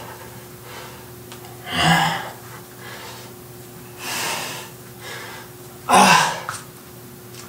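A man breathing hard from squatting exercise: three loud, breathy exhales about two seconds apart, the last the loudest, a couple with a little voice in them. A faint steady hum runs underneath.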